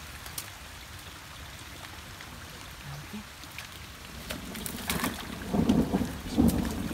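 Rain falling steadily, then from about four seconds in a low rumble of thunder builds, with sharp cracks near the end.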